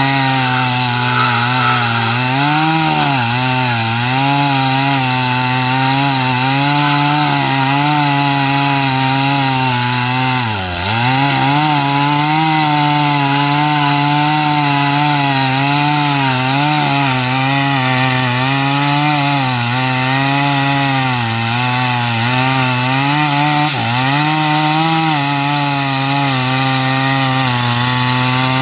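Stihl MS 250 two-stroke chainsaw running hard, as when cutting wood, its engine pitch wavering up and down throughout. The pitch dips sharply once about eleven seconds in, with smaller dips around three and twenty-four seconds.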